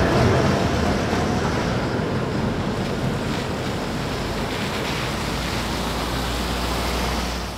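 Tatra T3 tram passing close, loudest about a second in, giving way to a steady hiss of traffic on the wet street and a low engine hum as a van approaches; the sound fades out near the end.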